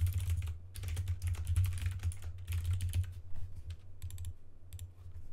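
Rapid typing on a computer keyboard, with a dense run of keystrokes that thins to a few separate key clicks near the end, over a steady low hum.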